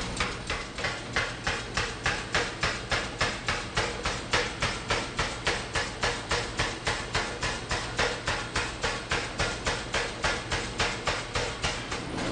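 Power hammer striking red-hot steel tube in a steady run of blows, about three a second, drawing the tube down. A constant low hum from the hammer's machinery runs underneath.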